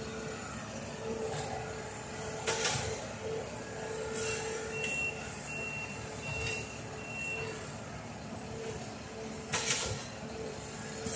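Engine of a rail maintenance-of-way track machine running steadily as the machine moves along the track. Four short high-pitched beeps from its travel alarm sound about a third of the way in. Two short hisses of air release come about two and a half seconds in and again near the end.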